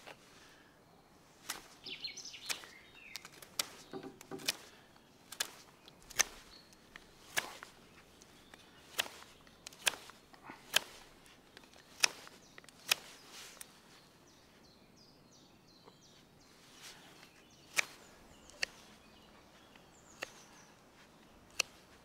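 Victorinox Huntsman pocket knife whittling a wooden knife blank, thinning the blade: short, sharp slicing strokes through the wood, about one a second at an uneven pace.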